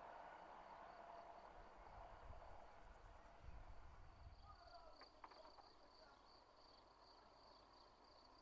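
Near silence in the countryside: a faint rush fades away in the first seconds, then an insect chirrs steadily at a high pitch from about four seconds in.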